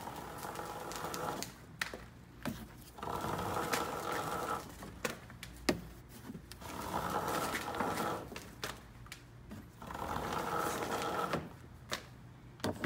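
Cord being pulled out of a car trunk hand over hand: four rubbing, buzzing pulls of about a second and a half each, roughly three seconds apart, with light knocks between them.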